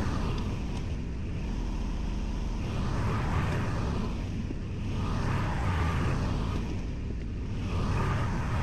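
Kubota L2501 compact tractor's three-cylinder diesel engine running steadily under work, its sound swelling and easing every two to three seconds.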